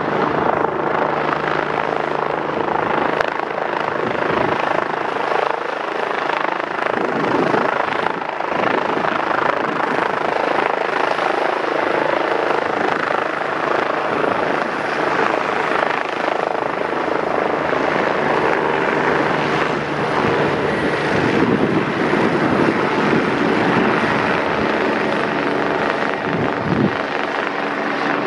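Rescue helicopter taking off and climbing away: loud, steady rotor and turbine noise.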